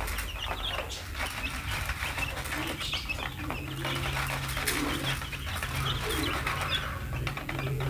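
Fifteen-day-old chicks peeping: many short high chirps overlapping continuously, with a few lower, throatier calls now and then. A steady low hum comes in about three seconds in.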